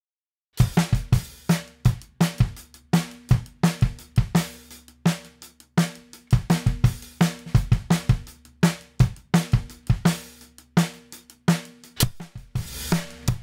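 Acoustic drum kit playing a steady beat of kick, snare, hi-hat and cymbals, recorded dry with no compression, starting about half a second in. Near the end a cymbal crash comes in, and the drums carry on through the MN-50 Smash Compressor, sounding denser.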